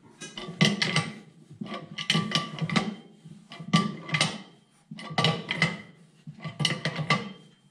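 Ratchet wrench clicking in short strokes, about once a second, with a light metallic ring, as it turns the nut of a harmonic balancer installer tool. It is drawing a timing gear down onto a 454 big-block crankshaft snout.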